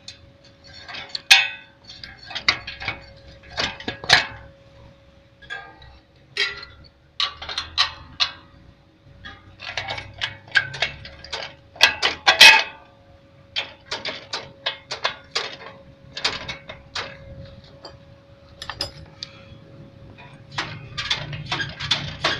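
Irregular clinks and knocks of metal parts being handled, in short sharp bursts of several at a time, over a faint steady hum.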